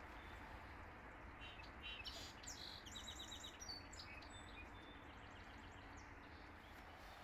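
A songbird singing a short burst of high chirps and a quick trill of repeated notes, with a few fainter notes after, over the faint steady rush of the river.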